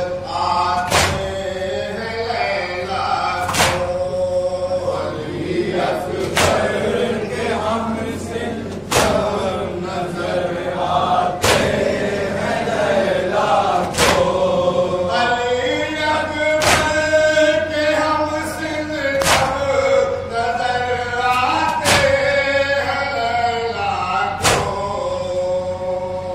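A group of men chanting a Muharram noha (mourning lament) in unison, with a loud hand-on-chest strike of matam about every two and a half seconds, all struck together in time with the chant.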